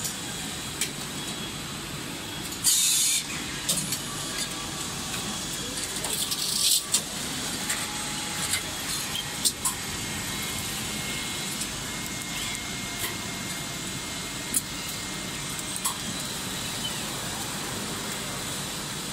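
Automated cable coiling and packing machinery running on a factory floor: a steady machine hum with scattered clicks and clanks of the grippers and conveyors. Two short hisses of compressed air, about 3 and 7 seconds in, come from the pneumatic actuators.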